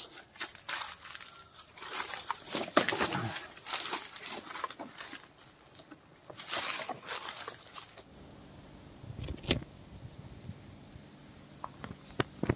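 Footsteps and rustling through dry leaves and undergrowth, crackling irregularly, for about eight seconds. The sound then cuts abruptly to a quieter steady background with a faint low hum and a few sharp clicks.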